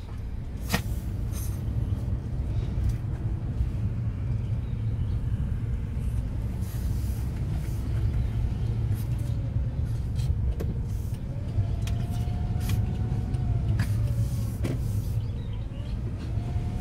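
Steady low road rumble inside a moving car with a window open, with a few small clicks. A faint wavering whine comes partway through.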